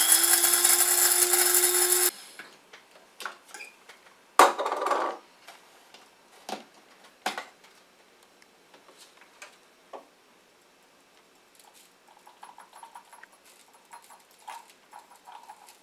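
Shardor CG638B blade coffee grinder running, its stainless steel blade spinning through coffee beans, cutting off abruptly about two seconds in. A sharp knock and a short rattle follow, then light clicks and taps of the stainless steel grinding cup and its clear lid as the ground coffee is emptied onto a paper plate.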